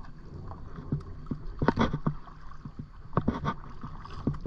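Kayak paddling: paddle strokes in the water, with short splashes and knocks. They come in two clusters, one about two seconds in and another a little past three seconds, over a steady low rumble.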